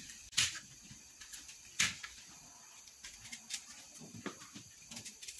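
Small knife cutting through a citrus fruit onto a plastic cutting board: two sharp cuts about a second and a half apart, then lighter clicks and scrapes as the halves are handled.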